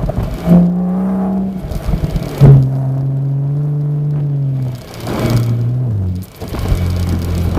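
BMW M135i's turbocharged straight-six exhaust, revved and held at steady engine speeds that step lower each time, with a sharp loud bang about half a second in and another about two and a half seconds in.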